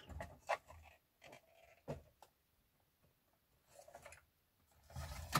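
Handling noise: a few short clicks and taps of small plastic and metal parts as a scale RC model truck and its hitch pin are handled on a wooden workbench, with a louder rustle and knock near the end.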